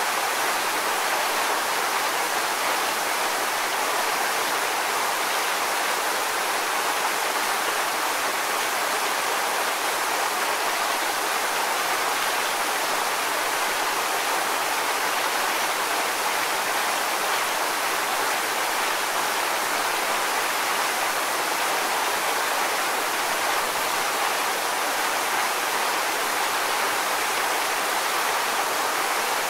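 Waterfall: water pouring and splashing in a steady, even rush, more hiss than deep rumble, with no breaks or changes.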